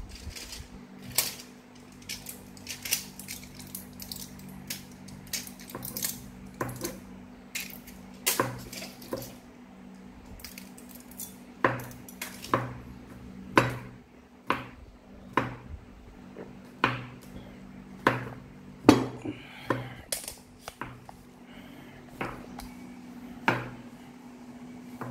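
Kitchen knife mincing garlic cloves on a wooden cutting board: sharp, irregular knocks of the blade striking the board, several a second in the first half, then about one a second.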